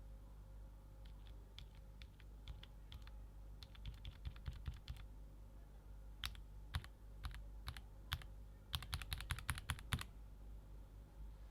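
Mechanical keyboard with Gateron North Pole Yellow linear switches being typed on: light, scattered keystrokes at first, a few louder single presses, then a fast flurry of keystrokes about nine seconds in that stops shortly before the end.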